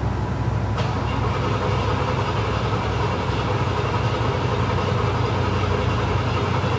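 Classic Cadillac V8 engines idling together with a steady low rumble, echoing off concrete. A steady hiss comes in about a second in and stays.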